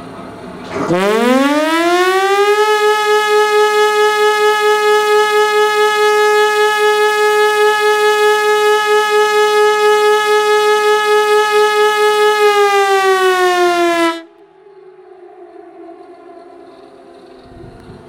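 Pintsch Bamag E57 pneumatic high-performance siren sounding one blast of the fire alarm signal, its third start-up. About a second in it howls up in pitch to a loud steady tone that pulses quickly in loudness for about ten seconds. It then sags slightly in pitch and cuts off abruptly, leaving a fainter falling tone.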